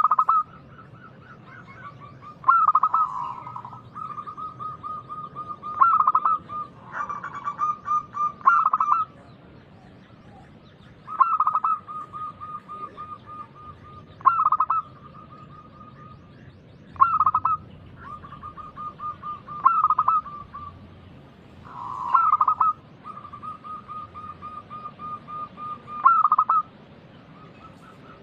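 Zebra dove (perkutut) cooing its song over and over: each phrase opens with a loud note and runs on into a quick string of softer coos, repeating every two to four seconds.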